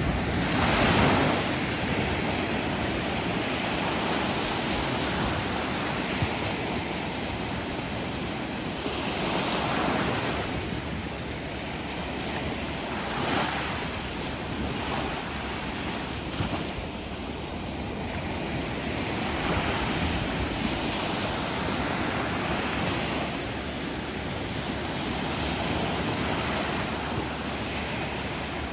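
Sea waves washing onto a shore: continuous surf with a swell every few seconds, the loudest about a second in.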